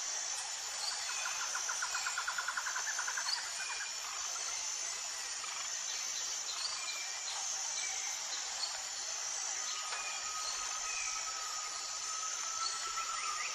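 Countryside nature ambience: a steady high-pitched insect chorus with scattered short bird chirps. A rapid trill runs for about two seconds starting a second in, and a thin steady tone comes in near the end.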